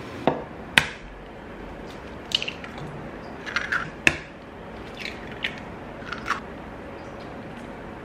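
A series of short, sharp knocks and cracks from an egg being tapped and cracked against a stone countertop and a stainless steel mixing bowl, the sharpest about four seconds in.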